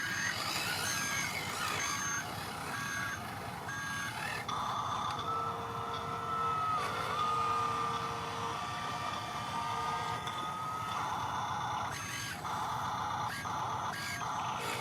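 Electronic reversing-alarm beeps from an RC construction model's sound unit, repeating regularly about twice a second. In the middle the beeping gives way to a steady high whine for several seconds, and the beeps return near the end.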